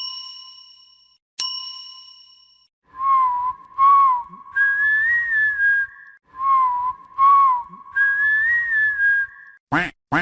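Phone notification tones: two bell-like chime strikes about a second and a half apart, each ringing out, then a short whistled notification phrase that swoops and steps up in pitch, played twice. A quick gliding sweep begins the next tone right at the end.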